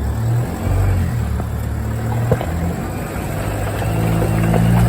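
4x4's engine running as it drives a rough off-road track, the engine note shifting and growing louder towards the end, with a single knock about two seconds in.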